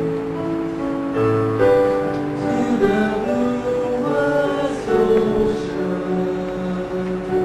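Church choir singing, with sustained notes in several voice parts over instrumental accompaniment.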